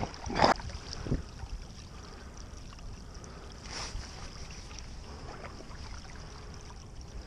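Stand-up paddle strokes: the blade dipping and pulling through calm water in a few swishes, the loudest about half a second in and another near four seconds. A low wind rumble runs under them on the microphone.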